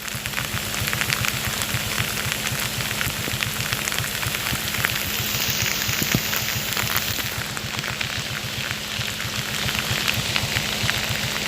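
Rain falling, a dense patter of drops with many small sharp ticks, over a steady low hum.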